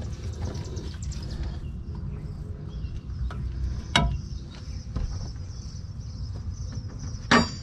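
Steady low background rumble with two sharp knocks, one about four seconds in and one near the end, from hand tools and fittings being handled while a truck's air dryer lines are reconnected.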